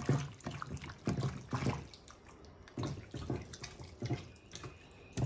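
Hands squeezing and massaging sliced beef in a wet, oily soy-sauce and cornstarch marinade in a glass bowl: soft wet squishes in irregular bursts.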